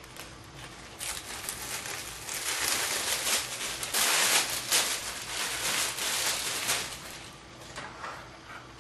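Thin heat-proof plastic slow cooker liner rustling and crinkling as it is handled and spread out, in irregular bursts that are loudest about four seconds in and die down near the end.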